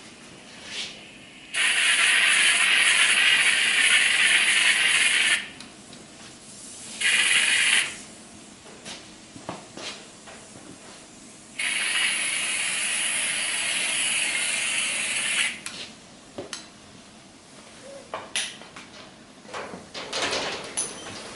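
Compressed air hissing out of a powder-coating gun in three bursts as powder is sprayed: one about four seconds long, a short one of about a second, then another of about four seconds. A few light clicks and knocks come in between and near the end.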